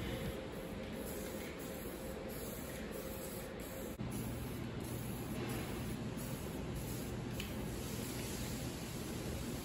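Aerosol spray can hissing in a series of short bursts.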